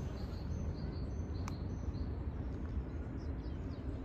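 Park ambience by a pond: a steady low rumble with faint, short bird chirps scattered through it, and a single sharp click about a second and a half in.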